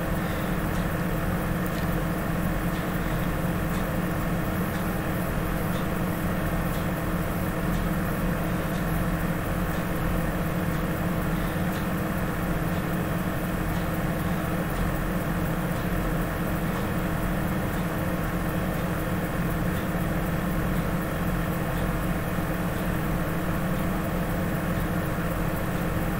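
Steady machine hum made of several even tones, with a few faint clicks.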